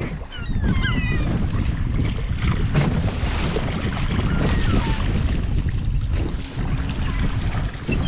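Gulls calling around the boat: a cluster of short cries that slide in pitch about a second in, then scattered single cries. Under them runs a steady low rumble of the boat's motor and wind on the microphone.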